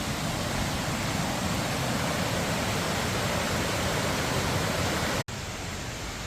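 Waterfall, falling water making a steady, even rush. About five seconds in it cuts off abruptly and comes back a little quieter.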